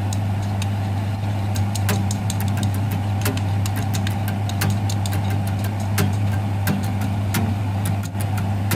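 Food frying in a hot pan: scattered sharp crackles and pops of oil over an even sizzle, with a steady low hum underneath.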